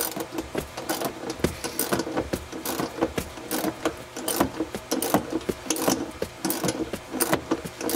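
Hand ratchet backing out a small 8 mm bolt, its pawl clicking in quick, uneven strokes. The bolt is long and finely threaded, so it takes many turns to come out.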